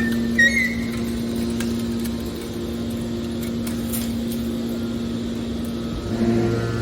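Hydraulic metal baler running with a steady machine hum. Near the end the hum deepens and grows louder.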